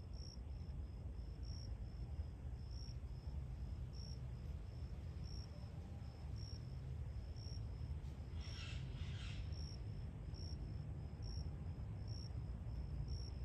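Insects chirping in a steady high pulse, with a louder chirp about once a second, over a low rumble. Two brief hissy sounds come about nine seconds in.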